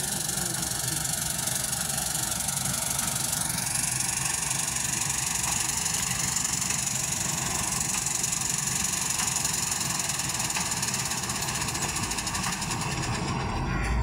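New Holland combine harvester running steadily at work, its engine and threshing machinery making a dense, even noise.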